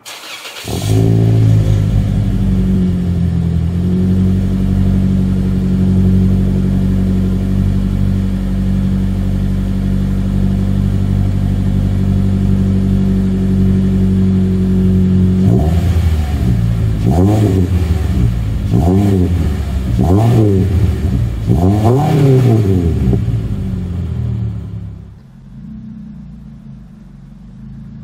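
Toyota Corolla four-cylinder engine through a Borla S-Type cat-back exhaust, heard at the tailpipe. It starts about half a second in with a brief flare of revs, then settles into a steady idle. From about 16 s it is revved five times in quick succession, each rev rising and falling, before dropping back to a quieter idle near the end.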